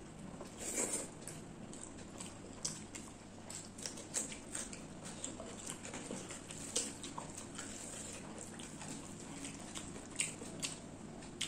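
Close-up hand-eating sounds: fingers squishing and mixing rice with chicken curry on a plate, and chewing, heard as scattered short wet clicks and smacks, with a louder one about a second in.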